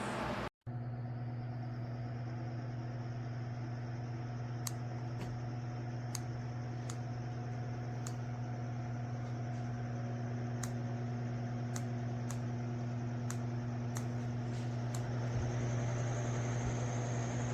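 Lasko 18-inch Cyclone pedestal fan running, with a steady electric motor hum and the rush of air. Faint ticks come at irregular intervals. Near the end a thin high whine rises a little and the fan gets slightly louder.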